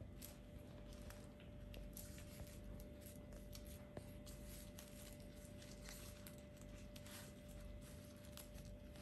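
Faint scratchy rustling and light scrabbling of four-week-old kittens moving about as they play, a scatter of short soft scrapes over a steady low hum.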